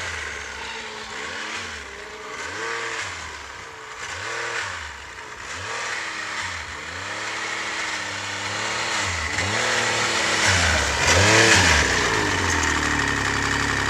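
Yamaha FX Nytro snowmobile's four-stroke three-cylinder engine revving up and down again and again, about once a second, as the sled is ridden through deep snow. Near the end it settles into a steady idle.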